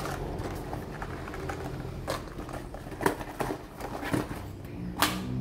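Fishing lures in their plastic packaging being handled: light rustling and scattered sharp clicks, the loudest near the end, over a low steady hum.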